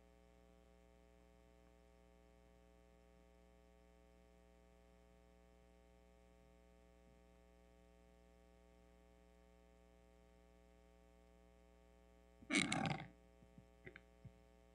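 Very quiet steady electrical mains hum. About twelve seconds in, a brief loud noise close to the microphone, followed by a few faint clicks.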